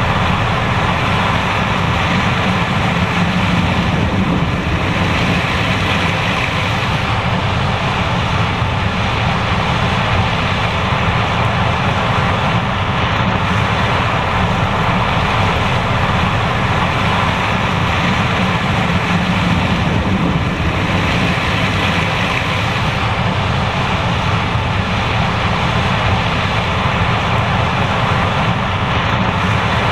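John Deere S780 combine running steadily while harvesting corn, a loud, even mechanical drone without a break.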